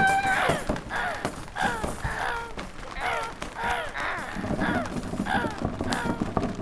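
Foley imitation of a crow cawing: a rapid run of short calls, about two a second, each falling in pitch, the first one the loudest.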